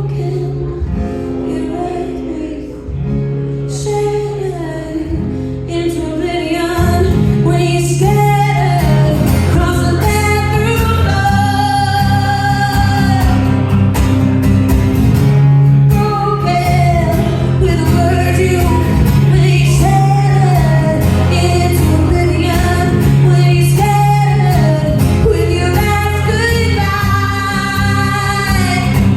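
Female singer performing an original song live with guitar accompaniment. The music fills out and gets louder about seven seconds in.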